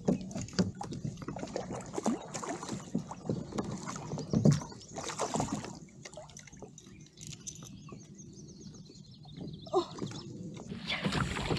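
A hooked bass thrashing and splashing at the surface beside a kayak, with scattered clicks and knocks from the fishing gear and hull. The splashing is heaviest around the middle and eases off for a few seconds before picking up again near the end.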